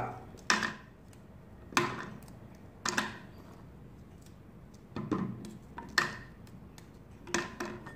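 Oreo biscuits being snapped by hand and dropped into a clear blender jar: about six sharp cracks and clicks, a second or so apart.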